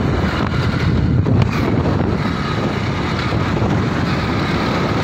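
Wind rushing over the microphone on a moving two-wheeler, with its engine running steadily underneath.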